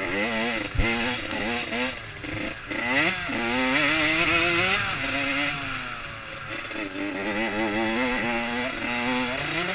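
Dirt bike engine revving up and easing off over and over as the rider accelerates and shifts along a trail, with a sharp thump about a second in.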